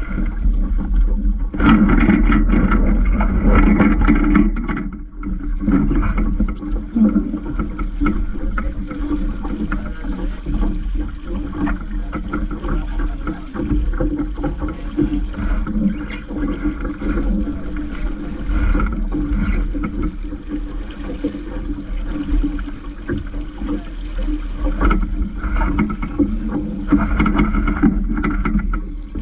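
A Vaucluse Junior sailing dinghy under way: water rushing along the hull, with wind buffeting the camera microphone. It swells louder for a few seconds about two seconds in and again near the end.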